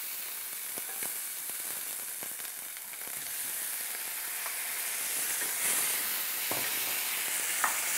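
Chicken pieces sizzling steadily in a hot pan of fried onion, spice and tomato masala, with a few faint knocks as the pan is stirred.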